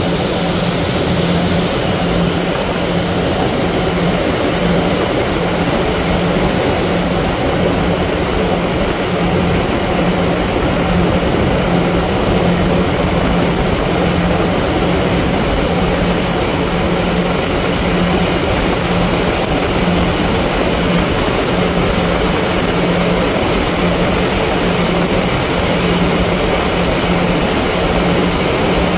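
A ferry's engine running with a steady, slightly pulsing low hum, over a continuous rush of wind and water as the boat moves.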